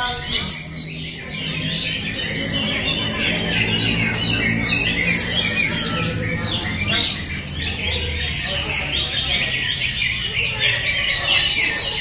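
Many caged greater green leafbirds (cucak hijau) singing at once, a dense, unbroken tangle of quick chattering phrases, with people's voices murmuring underneath.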